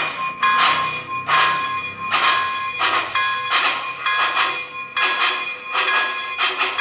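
The onboard sound system of an MTH HO-scale Union Pacific Big Boy model plays steam-exhaust chuffs in time with the moving drivers, about one a second at first and coming faster from about five seconds in as the locomotive speeds up. A steady ringing tone sounds under the chuffs.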